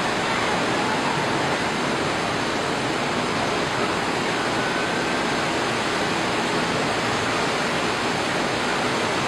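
Steady rushing noise of rough sea surf breaking, unbroken and at an even level.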